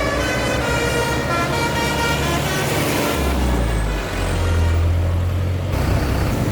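Tour bus's multi-tone telolet horn sounding a few stepped notes, then the bus's engine running loud and low as it passes close by, from about three seconds in.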